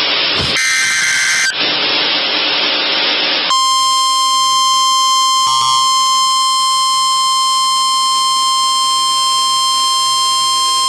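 NOAA Weather Radio emergency alert: the last of the screeching digital SAME header bursts in the first second and a half, a couple of seconds of radio hiss, then the steady 1050 Hz warning alarm tone starting about three and a half seconds in, announcing a new severe thunderstorm warning.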